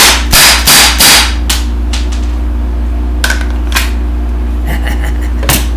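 Pellet pistol firing four quick sharp shots about a third of a second apart, followed by a few lighter clicks and knocks, over a steady low hum.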